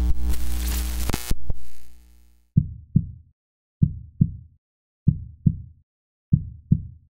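End-screen music: a loud electronic swell that ends about two seconds in, followed by a low heartbeat-like beat of paired thumps, one pair about every second and a quarter.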